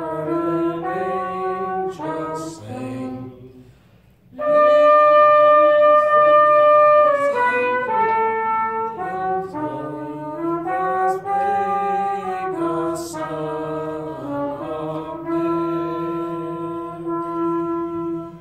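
Instrumental music: a slow melody in a brass-like tone over held bass notes, with a short break about four seconds in, stopping at the end.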